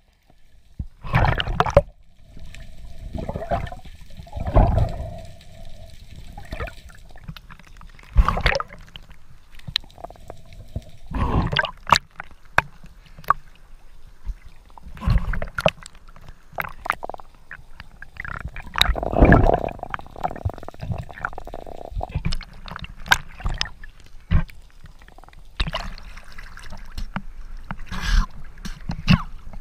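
Water gurgling and sloshing around an underwater action camera during a freedive, in irregular bursts of bubbles and water movement. Near the end the camera comes back up through the surface into choppy water.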